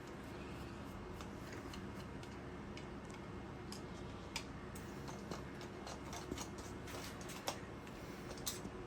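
Faint, irregular small clicks and taps of indicator parts and tools being handled at a workbench, over a steady low hum.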